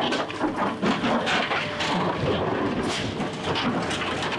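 Steel box of a Chevrolet pickup being wrenched and torn from the truck by a scrap handler's grapple: sheet metal creaking, scraping and clanking in rapid, irregular knocks. The box is still held fast to the frame.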